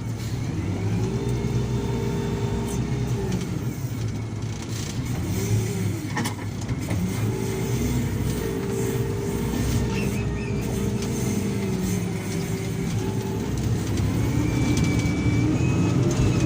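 Diesel engine of an SDLG wheel loader working, its pitch repeatedly rising as it revs up under load and dropping back, with a few brief knocks in between.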